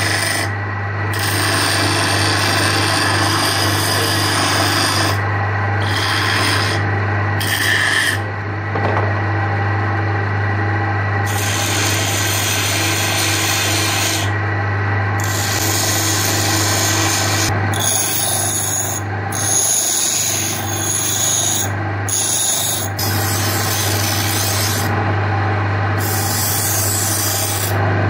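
A homemade bench grinder, a grinding stone on a half-horsepower electric motor, runs with a steady low hum. Steel is pressed against the spinning stone in repeated passes, and the rasping grind starts and stops as the tool touches the wheel and lifts off.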